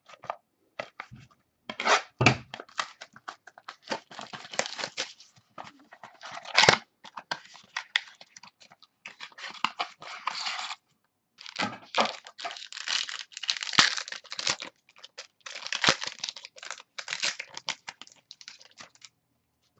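Trading-card pack wrappers being torn open and crinkled by hand, with cards and wrappers handled in a run of crackly bursts broken by short pauses.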